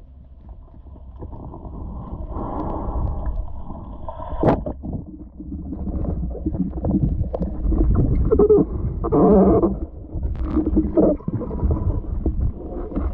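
Muffled underwater sound through an action camera's waterproof housing: a constant low rumble of water moving past the camera, with irregular gurgles and knocks and one sharp click about four and a half seconds in. The loudest stretch of gurgling and bumping comes around eight to nine and a half seconds.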